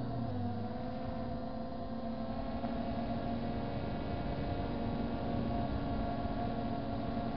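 MJX Bugs 3 quadcopter's brushless motors and propellers humming steadily in flight, a few held tones that drift slightly in pitch, over rough wind noise on the onboard microphone.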